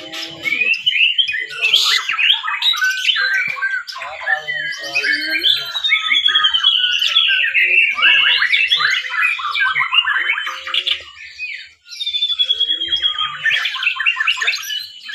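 Several white-rumped shamas singing at once, a dense tangle of overlapping loud whistles, sweeping notes and rapid trills, with a brief lull about three quarters of the way through.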